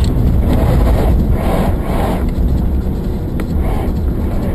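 Steady low rumble of a moving car's road and engine noise, picked up by a dash camera with wind buffeting the microphone, with a light click about three and a half seconds in.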